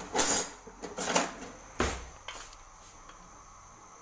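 Things being handled on a stone kitchen counter: a few brief rustling scrapes in the first second or so, then a single sharp knock just under two seconds in.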